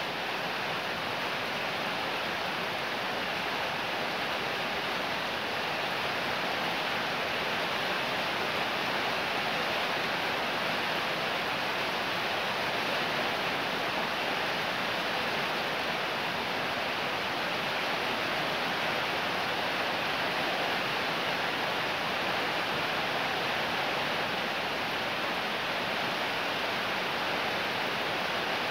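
Fairly heavy rain falling steadily: an even, unbroken hiss.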